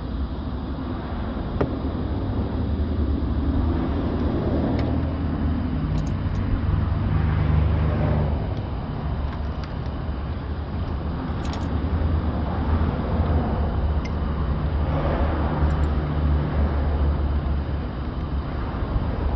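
Low, steady background rumble that swells and fades several times, with a few faint clicks.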